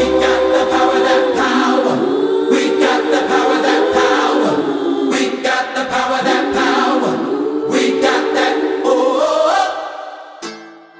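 Background music: a choir singing held chords, fading out near the end, where a few plucked guitar notes begin.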